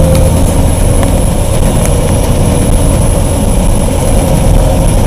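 Snowplow dump truck's engine running steadily while the truck drives and plows snow, heard from inside the cab: a loud, even low rumble with a faint steady whine above it.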